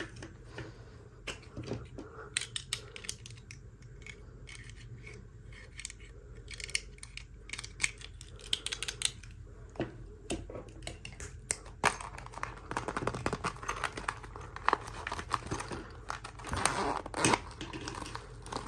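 Small toy packaging being handled and opened by hand: scattered clicks and taps, then denser crinkling and tearing of plastic and paper from a little past halfway.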